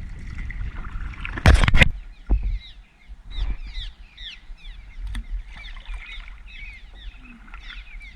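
A hard double knock on the kayak about one and a half seconds in, then many swallows chattering with quick overlapping chirps from their mud nests under the bridge.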